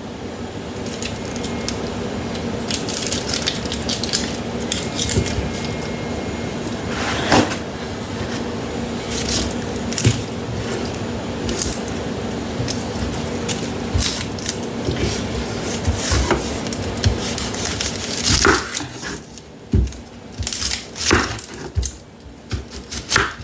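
Kitchen clatter: dishes and utensils knocking, clinking and scraping on the counter in irregular bursts, over a steady low hum.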